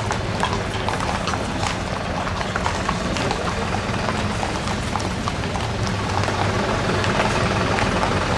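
Horses' hooves clip-clopping on an asphalt road as several horse-drawn carriages pass, the hoofbeats falling irregularly, over a steady low drone that grows a little louder near the end.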